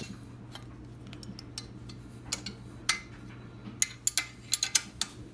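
Steel combination wrenches clinking and ticking against the bolts and mount bracket of the engine as they are fitted on. The sharp metallic clicks come a few at a time, then bunch together about four to five seconds in, over a faint steady hum.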